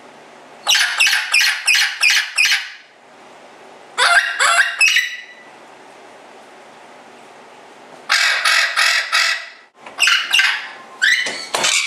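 Bird calls: four runs of rapid, harsh repeated notes, about five a second, with short pauses between the runs.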